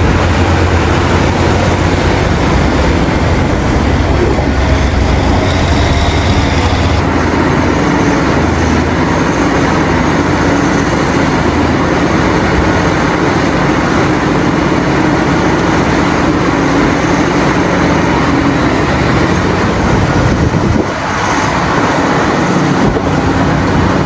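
A large hydraulic mining excavator running under load: a loud, steady heavy-machine din with a deep low rumble that is strongest for the first several seconds, then eases.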